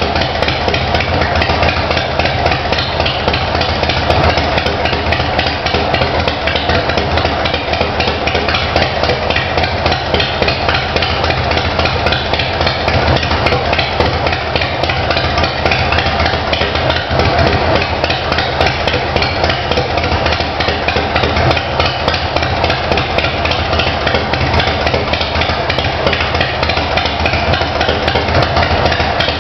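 2008 Big Dog Ridgeback chopper's V-twin engine idling steadily through Hooker Troublemakers slash-cut exhaust pipes, with a fast, even pulsing exhaust note.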